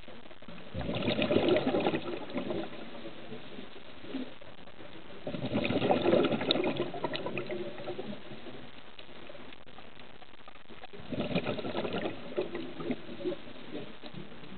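Scuba diver's exhaled breaths bubbling out of a regulator underwater: three gurgling bursts of bubbles about five seconds apart, over a steady faint hiss.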